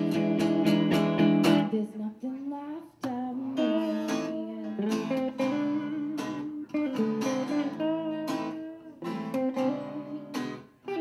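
Live acoustic duo: strummed acoustic guitar with a second guitar, and a woman singing over them. It opens with a run of quick strummed chords.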